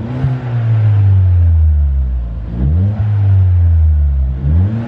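Ford Fiesta ST's 1.6 turbo four-cylinder engine, breathing through a Scorpion 3-inch non-resonated cat-back exhaust, being blipped while stationary. The revs flare and drop back to a low idle: once at the start, once a little past halfway, and once more near the end.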